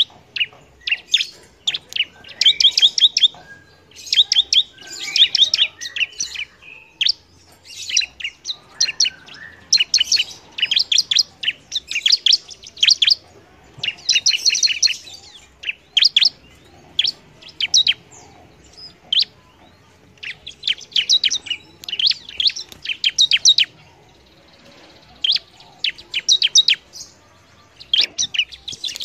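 Bar-winged prinia (ciblek) singing vigorously: rapid trains of high, sharp chirps in bursts of a second or two, broken by short pauses.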